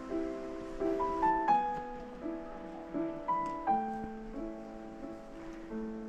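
Background music: a slow, gentle piano melody, single notes and chords struck every half second or so and left to ring.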